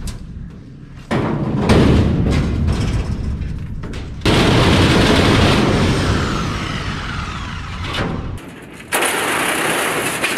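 Sheet-metal ductwork being wrenched loose and handled: a heavy metal bang about a second in, then a long crashing, scraping clatter from about four seconds in, and another rasping scrape near the end.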